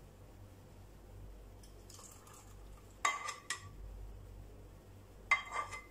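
Kitchenware clinking: a sharp clink with a short ring about three seconds in, a lighter one just after, and another near the end.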